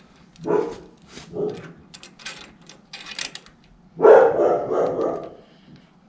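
A dog barking a few times, with a longer, louder run of barks about four seconds in. Small metallic clicks of screws being fitted by hand onto a hydraulic valve block sound underneath.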